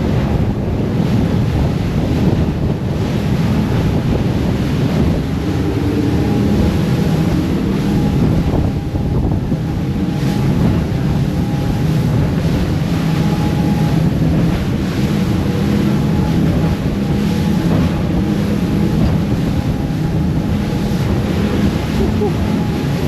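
Boat running at speed through rough seas: wind buffeting the microphone and water rushing against the hull, over the steady drone of the boat's engine.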